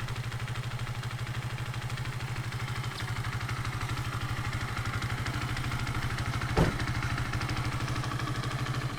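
Motorcycle engine idling steadily with an even, rapid pulse. There is one short knock about six and a half seconds in.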